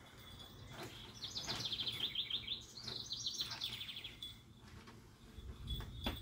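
A songbird singing two fast trilled phrases one after the other, each a rapid run of repeated high notes lasting about a second.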